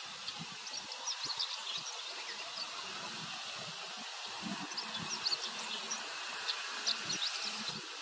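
Chestnut-eared bunting singing: several short bursts of quick, high notes over a steady outdoor hiss, with a low, wavering buzz coming and going.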